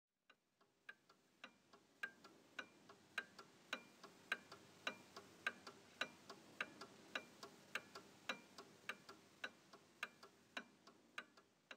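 Faint, even tick-tock of a clock: loud ticks a little under twice a second, each with a softer tick between. It fades in just after the start.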